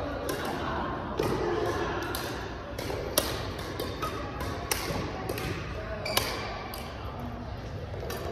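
Badminton rally: four sharp racket-on-shuttlecock hits, one every one and a half to two seconds, echoing in a large hall over a steady background of voices.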